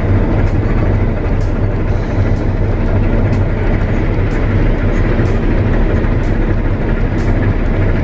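Claas Lexion combine harvester running steadily while cutting wheat, heard from inside the cab as a constant low engine and machinery drone, with a faint tick about once a second.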